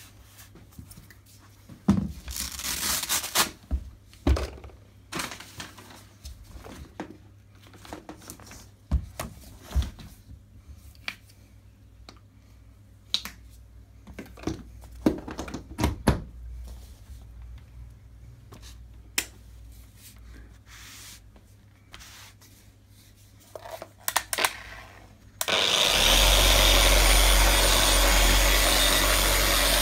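Scattered clicks, knocks and rustles as a foam pad is fitted to an electric orbital polisher, then about 25 seconds in the polisher switches on and runs steadily, buffing a laptop's metal lid.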